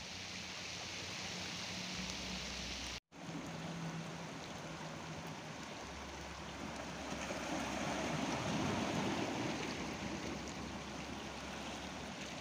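Heavy rain falling steadily on open water and shoreline rocks, with small waves washing against the rocks; the wash swells louder around the middle. The sound cuts out briefly about three seconds in.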